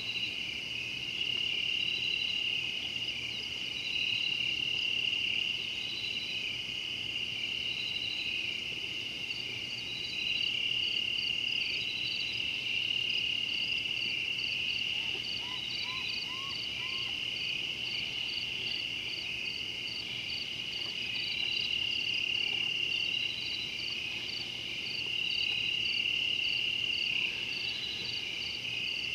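Night insect chorus: a steady high-pitched trill with a slower, regular chirping above it. About halfway through, four short rising notes sound once.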